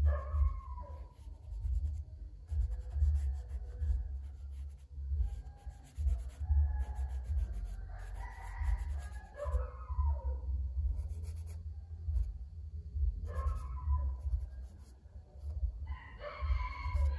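Charcoal scratching across drawing paper in short shading strokes, under a low steady hum. A rooster crows several times in wavering calls, loudest near the end.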